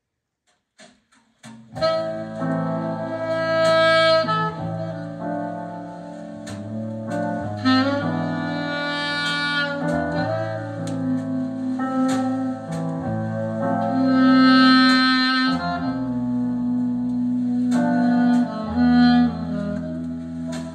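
Instrumental music starting about two seconds in, a sustained lead melody over a bass line, played back through a pair of flat wooden-diaphragm speakers each driven by a tiny 1-inch, 8 W exciter.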